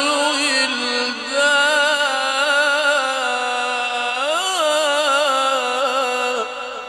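Quran recited in melodic tajweed style: a single voice draws out one long, ornamented phrase whose pitch wavers and turns. It stops about six and a half seconds in and dies away in an echoing tail.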